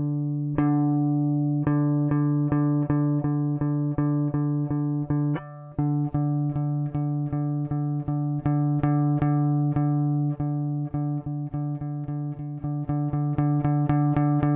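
Electric guitar repeatedly picking the same low note, about 146 Hz (D), played through a breadboard audio compressor that holds each note to a fairly even level. The picking grows faster toward the end, with a short break about five seconds in.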